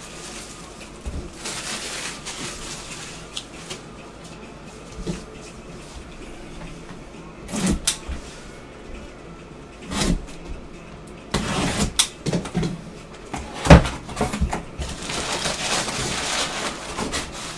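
Packaging being handled and opened by hand: intermittent rustling and scraping with scattered knocks, the sharpest about 14 seconds in.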